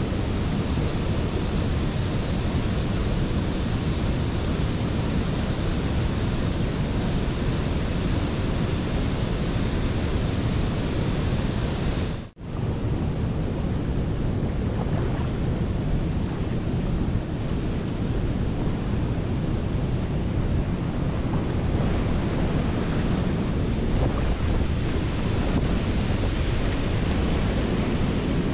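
Steady roar of a waterfall and the churning white water below it, with a momentary break about twelve seconds in.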